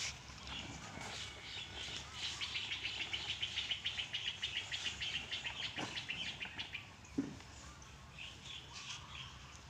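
A bird calling in a fast, even chattering trill for several seconds, with shorter chirps around it. A single dull thump comes about seven seconds in.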